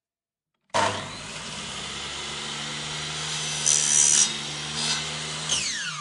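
Buzz saw starts abruptly about a second in and runs with a steady buzzing whir. It turns louder and harsher a little past the middle. Near the end its whine falls in pitch as it begins to wind down.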